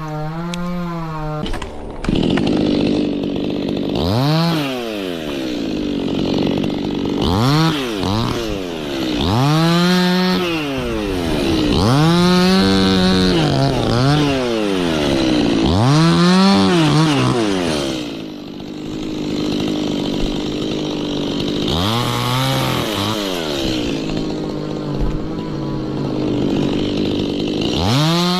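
Two-stroke Stihl chainsaw cutting a tree, its engine revving up and falling back again and again in swells every couple of seconds as the throttle is worked.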